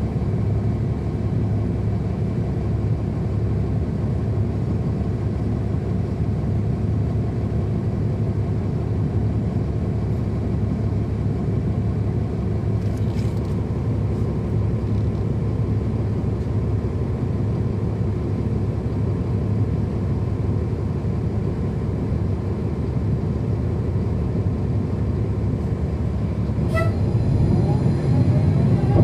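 Cummins ISL9 diesel engine of a 2010 NABI 40-SFW transit bus heard from on board, running steadily with a constant low drone. Near the end there is a brief high-pitched tone, and the engine grows a little louder.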